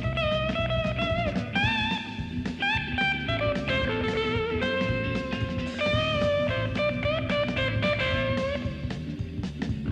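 Background music: a bluesy guitar playing a melody of held notes that bend and slide, over a steady beat.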